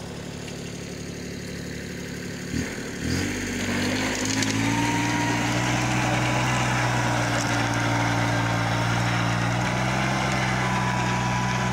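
Compact tractor's diesel engine running steadily under load as it drives a rear-mounted rotavator through the soil. Two sharp knocks come about two and a half to three seconds in; after them the engine is louder and closer, its pitch rising slightly before holding steady, with a thin steady whine now and then.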